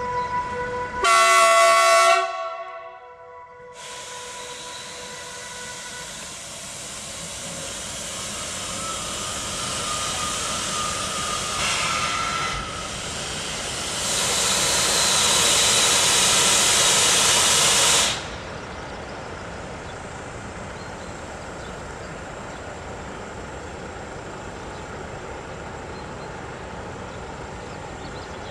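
Newag E6ACTd Dragon electric freight locomotive gives one short, loud multi-tone horn blast about a second in, then sets off slowly with its train of loaded coal wagons. A rising rushing noise builds as it gets under way, with a louder hiss that stops abruptly about two-thirds of the way through.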